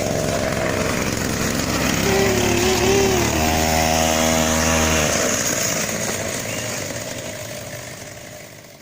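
Small two-stroke chainsaw engine driving a homemade motorbike, running with its pitch wavering up and down, then holding a steady even note for a second or two. The sound fades away over the last few seconds.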